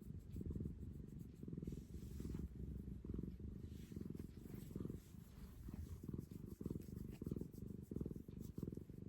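Domestic cat purring continuously, a low rumble that swells and eases with each breath in and out.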